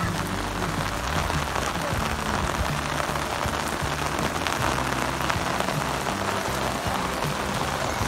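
Heavy rain falling steadily, a continuous hiss of rain on rooftops and a wet concrete terrace.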